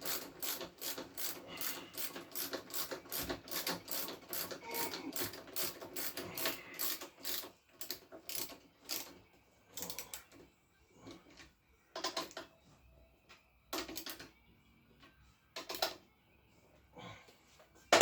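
Socket ratchet clicking in quick, even strokes, about four clicks a second, as bolts are tightened down. About halfway through the ratcheting stops, leaving a few separate clicks and knocks.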